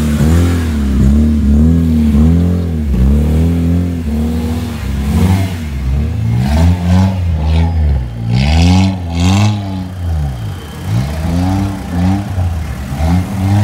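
Engines of modified cars being revved in quick, repeated throttle blips as they roll slowly past, the engine note rising and falling about one to two times a second. There are a few brief noisy bursts in the middle.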